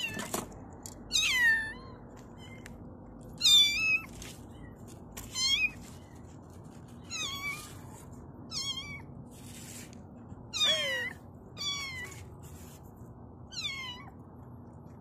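A kitten mewing over and over: about eight short, high-pitched mews, most falling in pitch, one every second or two.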